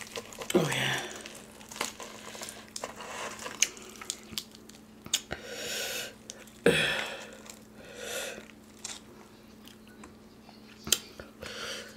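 Crispy fried chicken breading crackling and tearing as the pieces are pulled apart by hand, with close-miked chewing and biting. Sharp crunches stand out near the start, about two-thirds of the way through and near the end.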